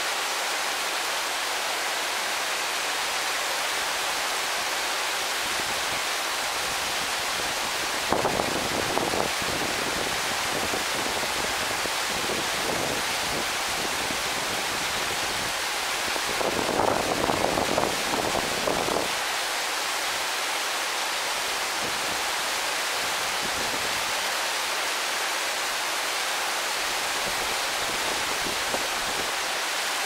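Japanese garden waterfall: water falling and splashing in a steady rushing hiss. About eight seconds in and again about sixteen seconds in there are short louder, deeper, rougher spells of a second or three.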